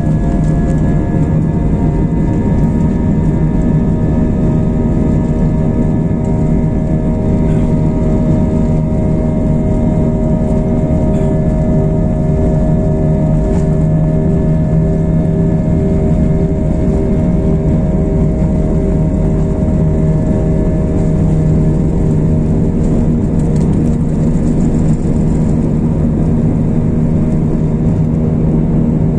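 Airbus A320 turbofan engines at takeoff thrust, heard from inside the cabin over the wing during the takeoff roll and lift-off: a loud, steady drone of several held tones over a deep rumble, with one tone pulsing slowly midway.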